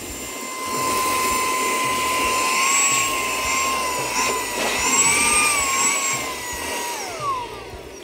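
xCool cordless handheld vacuum's brushless motor running at its higher of two speeds: a steady high whine over rushing air as it sucks oatmeal and coffee grounds off a paper plate. The whine wavers in pitch midway, then glides down as the motor is switched off about seven seconds in.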